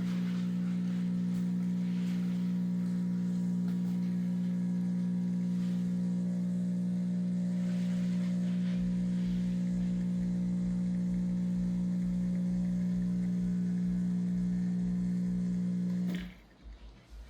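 Gemilai 3145 espresso machine's pump running with a steady electric hum during a shot, then switching off abruptly about 16 seconds in.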